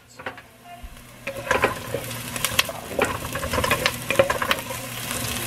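Diced onions sizzling in olive oil in a nonstick pot, frying toward translucent, with a wooden spatula scraping and clicking against the pot as they are stirred from about a second in.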